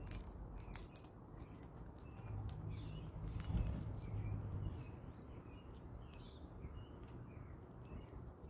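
Small birds chirping again and again over a low outdoor rumble. Through the first three and a half seconds a run of sharp clicks and crackles, loudest about three and a half seconds in, as a chipmunk scurries in over dry leaves and peanut shells.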